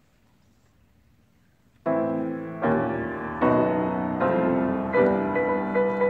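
Grand piano played four hands: after near-silent room tone, the duet begins about two seconds in with loud chords struck roughly every three-quarters of a second, each left ringing into the next.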